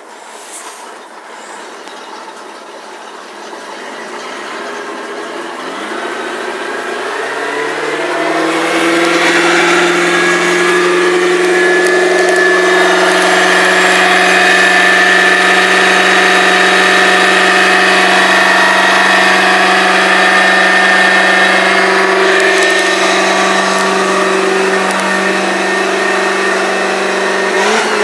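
MerCruiser 350 Mag MPI V8 inboard running in forward gear at idle, with the boat on its trailer, turning the Bravo One outdrive. The engine grows louder and slightly higher over the first ten seconds or so, then holds a steady note.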